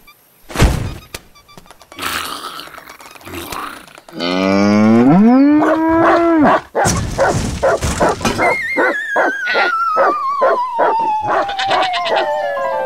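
A cartoon dog howling: one long howl that rises in pitch and then holds, about four seconds in. After it, a long tone slides steadily down in pitch over a quick regular beat.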